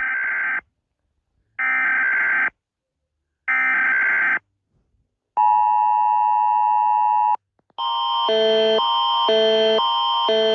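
Emergency Alert System broadcast tones: three short bursts of screechy digital header data with about a second of silence between them, then a steady two-tone attention signal for about two seconds. About eight seconds in, a repeating alarm pattern of alternating high and low tones begins, cycling about once a second.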